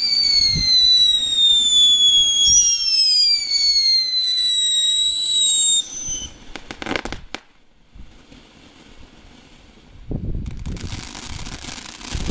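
Small consumer fireworks: several whistling effects scream at once, each falling slowly in pitch, for about the first six seconds. A quick volley of sharp crackling bangs follows, and after a short lull a ground fountain starts spraying with a loud, steady hiss about ten seconds in.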